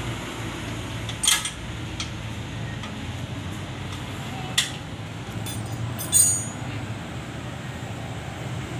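A few sharp metal clinks of a hand tool against the engine's mounting: one about a second in, one near the middle and a short rattling clink after six seconds, over a steady low rumble.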